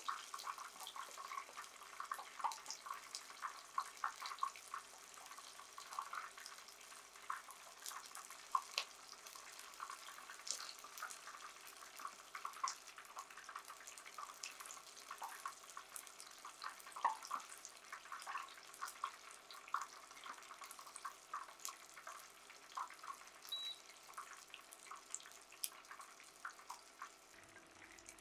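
Hot oil sizzling and crackling with a dense, steady run of small pops as flour-and-aonori-coated tofu deep-fries in a pot for agedashi tofu.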